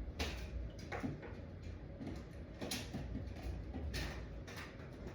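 Scattered light knocks, taps and short scrapes of hand work, with no drill or other motor running.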